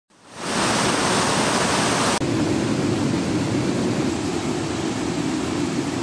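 Waterfall plunging into a pool: a loud, steady rush of water. It fades in over the first half second and turns abruptly deeper about two seconds in.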